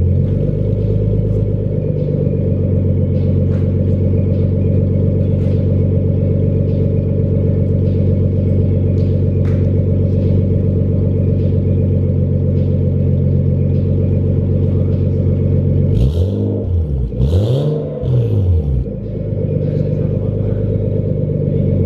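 Nissan Skyline R32's RB-series turbocharged inline-six idling steadily through its cut and re-welded HKS exhaust. It is blipped twice about sixteen and seventeen seconds in, the pitch rising and falling each time before it settles back to idle.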